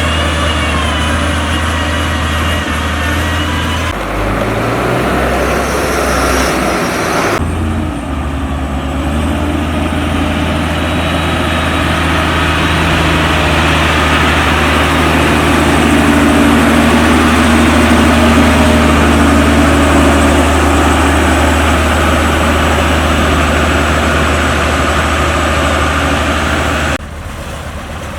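Heavy diesel engines of earthmoving machines running steadily at work, with a strong low drone. The sound changes abruptly about 4 and 7 seconds in and again near the end.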